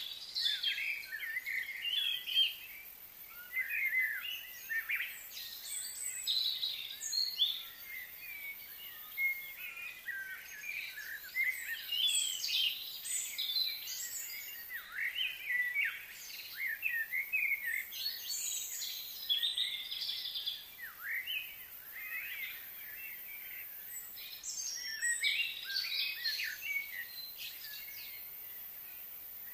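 Several birds singing and chirping continuously, many short high calls with rising and falling notes overlapping one another.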